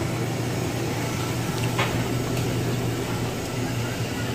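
Steady mechanical hum of food-truck kitchen equipment running, with a light clink a little under two seconds in.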